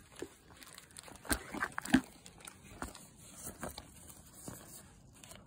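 Nylon tent fabric rustling as it is handled, with scattered soft knocks. Two sharper knocks come a little over a second in and about two seconds in.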